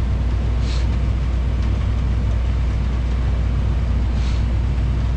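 Tractor engine running under steady load, heard as a constant low drone from inside the cab, with two brief faint hisses, about a second in and near the end.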